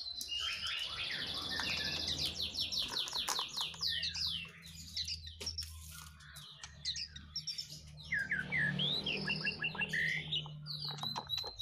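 Songbirds chirping and singing, with a fast run of repeated falling high notes in the first few seconds and more scattered calls later. A faint low steady hum runs underneath in the second half.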